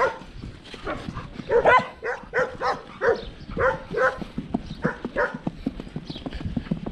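A dog barking over and over in quick runs of short barks, which stop about five seconds in. Under them are the light clip-clop of a horse's hooves walking on a dirt track.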